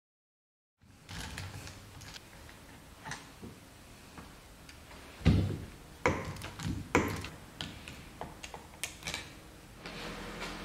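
Ratchet wrench clicking while screws are undone on a Vespa GS150 engine, with a few louder metallic clanks about halfway through. It starts about a second in, after silence.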